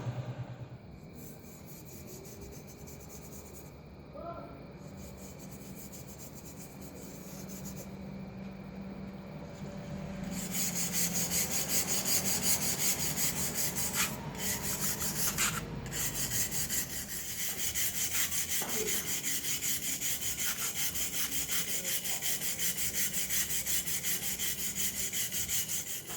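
Abrasive hand-rubbing strokes against a workpiece, about two strokes a second: fainter at first, then louder and harsher from about ten seconds in.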